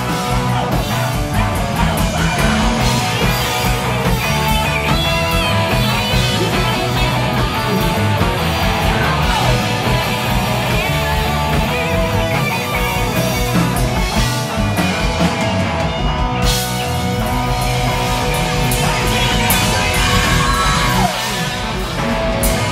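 Live rock band playing loud: distorted electric guitars over a full drum kit, with a male singer's voice.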